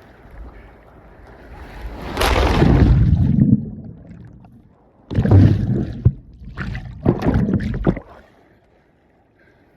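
Ocean wave breaking over a swimmer holding a phone: a rush of surf swells up about two seconds in, then two loud bouts of churning, splashing water against the microphone. About eight seconds in the sound drops suddenly to a low, muffled hush as he goes under the wave.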